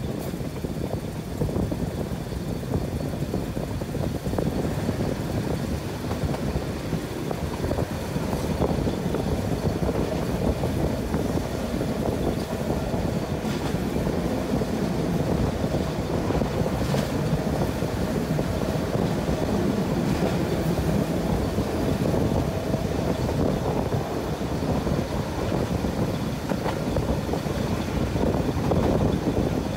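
Fiat M4 diesel railcar running steadily along the track: a continuous rumble of wheels and engine, with a few faint clicks, heard from beside an open side window.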